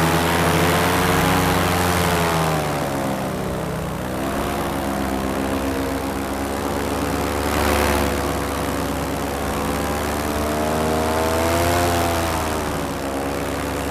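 Paramotor engine and propeller running steadily, its pitch dipping about four seconds in and rising again as the throttle is worked, with rushing wind and water noise beneath.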